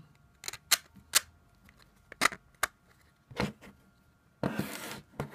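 Sharp, irregular clicks and taps of plastic case layers and bolts being handled and pushed together while a Raspberry Pi case is assembled, about six clicks, then a brief half-second rustling scrape near the end.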